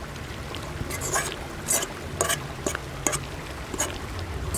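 Metal spoon scraping and tapping chunks of corned beef off a metal plate into a titanium cook pot: a run of about seven short scrapes roughly half a second apart, over a steady low rumble.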